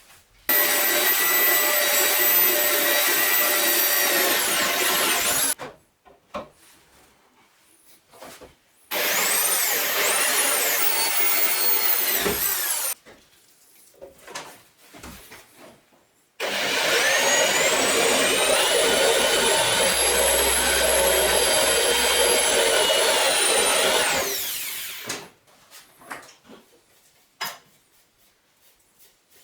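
A 9-inch (230 mm) angle grinder runs in three bursts of about four to eight seconds each. Each time it whines up to speed, then winds down when released. Faint knocks come between the runs.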